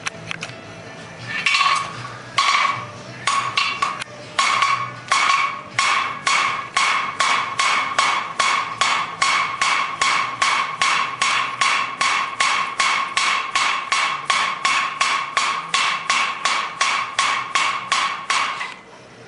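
Hand hammer beating a small piece of steel on an anvil, each blow ringing. It starts with a few spaced blows, then settles into a fast, even rhythm of about two to three blows a second, and stops abruptly near the end. This is hammer-heating the steel until it is hot enough to light a cigarette.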